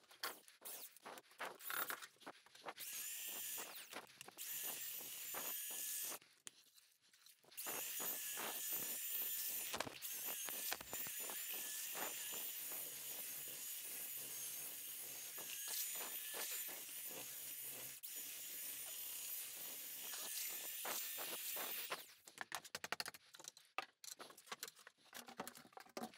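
Corded mixing drill turning a mud-mixer paddle through thick sand-mix mortar in a bucket, running with a steady motor whine. It stops briefly about six seconds in, runs again, and near the end stops; scattered knocks of handling follow.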